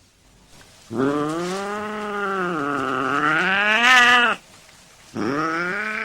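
Domestic cat yowling aggressively during a fight: a long, wavering drawn-out yowl that dips in pitch and then rises near its end, followed by a second yowl starting about five seconds in.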